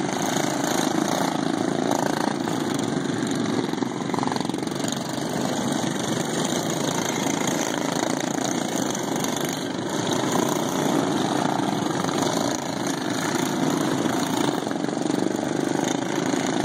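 Several GP-class racing lawn mowers, factory stock single-cylinder engines governed to 3650 rpm, running together as they circle the track, a steady overlapping engine noise.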